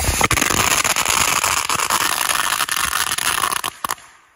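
A World-Class 500-shot firecracker strip going off in a rapid, continuous crackle of small bangs. It thins out near the end to a few last pops.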